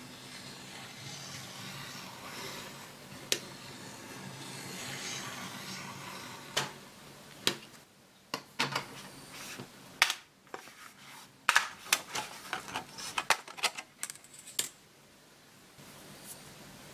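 A utility knife drawn along a steel ruler, scoring a thin sheet with a steady scraping hiss and a few sharp clicks. From about halfway, a quick run of sharp cracks and clicks as the sheet is worked along the score line and the strip comes free.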